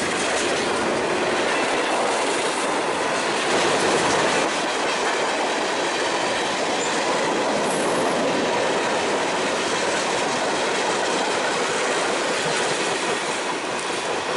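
Freight train cars rolling past at close range: a steady rumble and clatter of steel wheels on the rail joints, easing slightly near the end as the last tank cars pull away.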